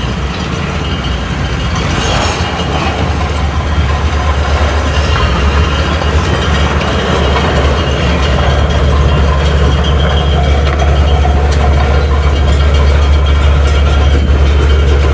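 Heavy machinery running: a steady low drone with mechanical rattling and clatter over it, growing gradually louder.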